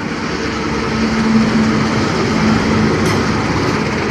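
Diesel-electric locomotive, a KAI CC206, running close past at the head of a passenger train: a steady engine drone with a low hum over the rumble of wheels on rail, growing a little louder as it nears. A short click comes about three seconds in.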